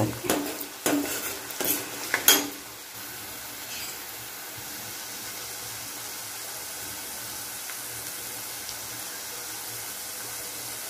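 Chopped onions and green chillies sizzling in oil in a steel kadai, with a steel spoon scraping and knocking against the pan for the first couple of seconds; after that a steady sizzle alone.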